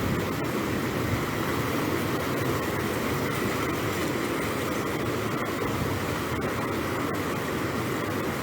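Steady rushing of fast-flowing floodwater across a road, an even noise with no change in level.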